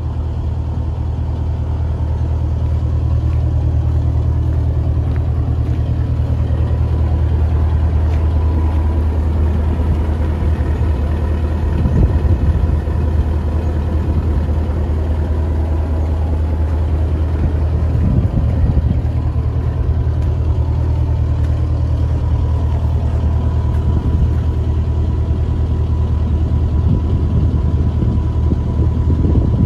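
Scania R143H heavy tow truck's V8 diesel idling steadily, a deep even hum with a thin steady whine above it. A couple of brief knocks come through about a third and two thirds of the way in.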